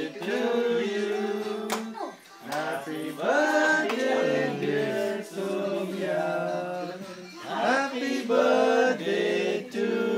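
A small group of people singing a birthday song together around the cake, with held, phrased notes and short breaths between lines.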